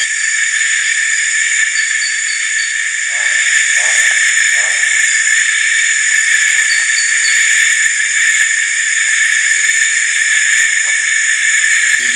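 Dense chorus of night insects: several steady high-pitched drones layered together.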